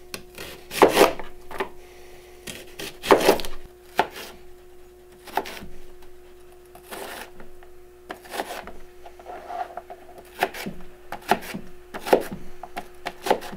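Kitchen knife dicing a white onion into small pieces on a cutting board: irregular sharp cuts, roughly one every second or so.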